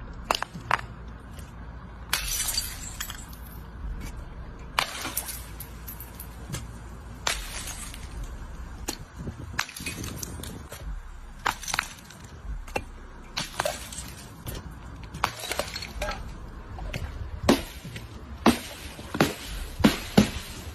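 A string of irregular sharp cracks and clinks, roughly one a second and coming closer together near the end, some with a brief ringing tail.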